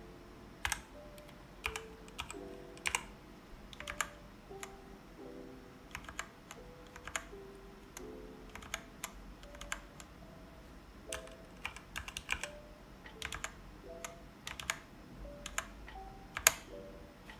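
Redragon Fizz K617 mechanical keyboard keys being pressed one at a time, sharp single clacks at irregular spacing, about one or two a second, with the loudest near the end, over soft background music.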